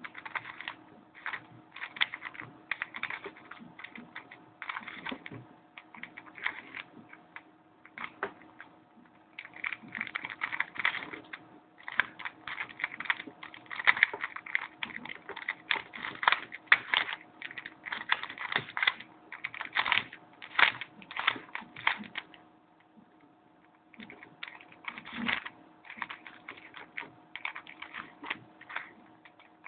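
Plastic layers of a custom 2x3x5 cuboid twisty puzzle clicking and clacking as they are turned quickly by hand. The turns come in rapid flurries of clicks, with short pauses about a third of the way in and again a little after three-quarters of the way.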